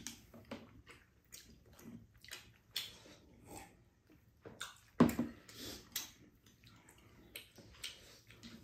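Close-up eating sounds from a tteokbokki meal: irregular wet slurps, smacks and chewing, with small clicks of spoons and chopsticks on bowls. A single sharper knock about five seconds in.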